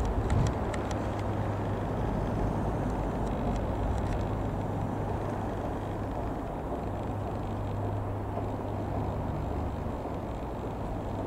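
Steady low drone of a Rockwell Commander 114B's single piston engine as the light aircraft flies over at a distance, with a few faint clicks in the first second.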